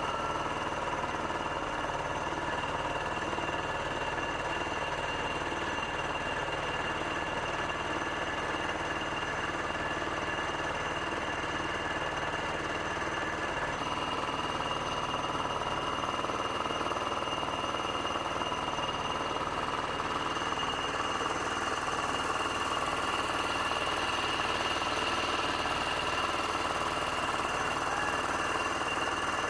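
A boat engine running steadily without a break, its tone shifting slightly about 14 seconds in.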